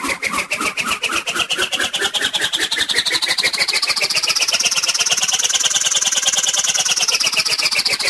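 Cartoon swoosh sound effect: a rapid fluttering buzz, about ten pulses a second, under a whistling tone that rises slowly in pitch and then falls back near the end.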